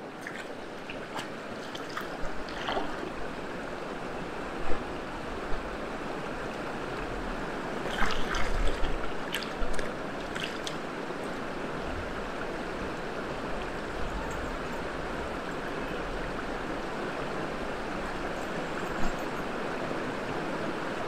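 Shallow, stony river flowing with a steady rush. Scattered sharp knocks and splashes, with a cluster about eight seconds in, come from someone wading in the water and scooping it into a bottle.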